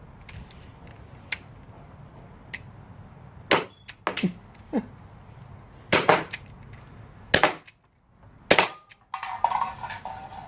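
Gas-powered metal BB gun firing: a run of sharp pops, five loud ones spread over about five seconds from a few seconds in, with a couple of fainter clicks before them.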